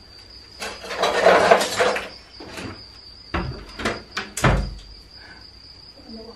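Wooden shelf board being shifted on its concrete blocks: a scraping rustle lasting about a second, then three knocks a little past the middle. A steady high insect drone runs behind.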